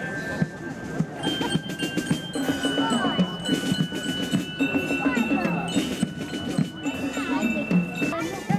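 Marching band drums playing, with ringing bell-like tones held for a second or more and crowd voices underneath.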